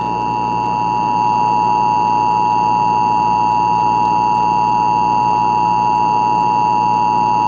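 Emergency Alert System attention signal: two steady tones just under 1 kHz sounding together as one unbroken, held beep.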